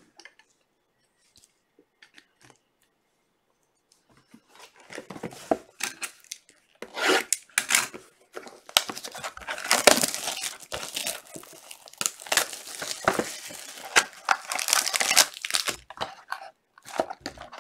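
A trading card pack's wrapper being torn open and crinkled by hand, in irregular bursts of tearing and crackling that start about four seconds in and are busiest in the second half. The start is near silent.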